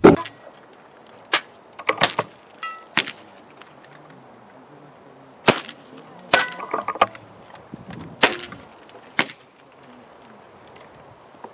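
Air rifles firing: about ten sharp cracks at irregular intervals, two in quick succession around two seconds in, a few followed by a brief ring.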